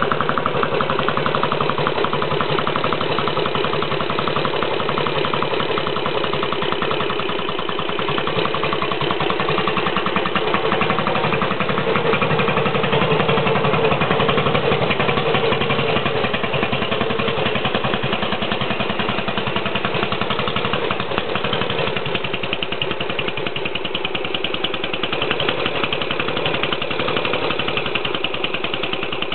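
A 1938 Ardie RBU 350's 346 cc single-cylinder four-stroke side-valve engine idling steadily on its first test run after restoration.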